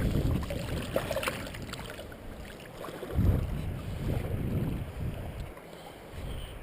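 Low, uneven rumbling noise of wind on the microphone, swelling and fading, with a few faint knocks about a second in.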